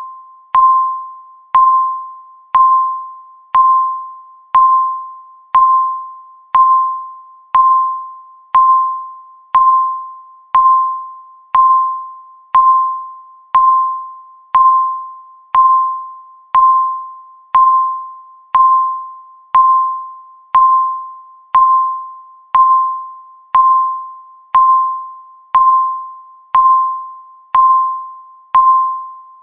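Countdown timer beep sounding once a second: a short, single-pitched electronic tone that fades quickly, repeated evenly, each beep marking one second counted down.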